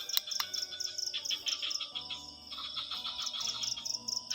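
Crickets chirping at night: a steady high pulsing, about four chirps a second, over a denser shrill chirring of other insects.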